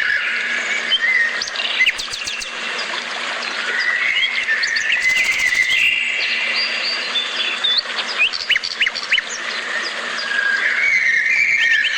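Several birds singing and calling together: held whistled notes stepping up and down in pitch, overlaid with many quick rising chirps.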